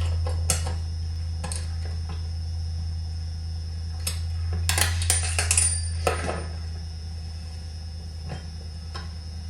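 Metal tools clinking and clicking on a chainsaw's flywheel nut as it is torqued down, with a quick run of sharp clinks about five seconds in, over a steady low hum.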